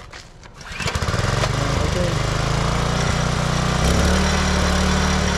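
Small 98 cc Kawasaki single-cylinder four-stroke engine on an Iseki mini tiller, pull-started, catching about a second in and then running steadily, with a slight rise in speed near the end.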